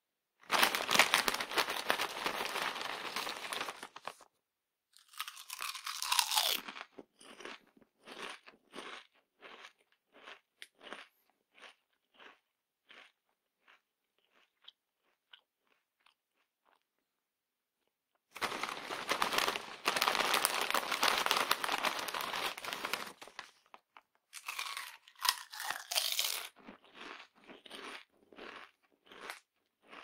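Crunchy potato chips being eaten, in two rounds. Each round opens with a few seconds of loud, dense crackling, followed by chewing crunches spaced about one to two a second that grow fainter and die away.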